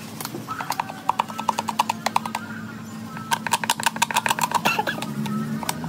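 Metal scraper blade scraping the rim of a motorcycle helmet shell by hand in quick back-and-forth strokes, about eight a second, in two runs of about two seconds each, taking off dried white filler.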